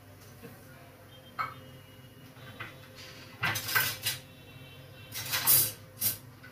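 Dishes and kitchen utensils clinking and clattering as they are handled, in short bursts: once about a second and a half in, a cluster around three and a half to four seconds, and again around five to six seconds.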